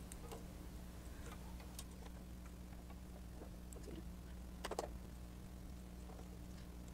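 Scissors snipping excess batting: a few faint scattered clicks, the loudest nearly five seconds in, over a steady low hum.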